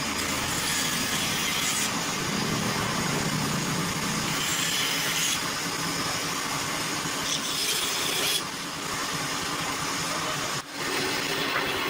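Woodworking machinery running with a steady rushing noise that shifts in character every second or two and dips sharply for a moment about ten and a half seconds in.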